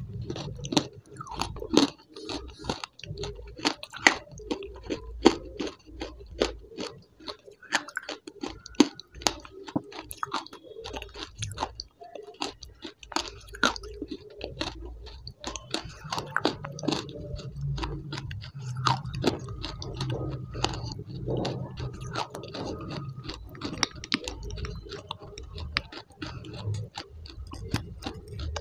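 Close-miked mouth sounds of someone chewing a spoonful of thick brown paste with lips closed: a steady run of wet clicks and smacks, a few a second.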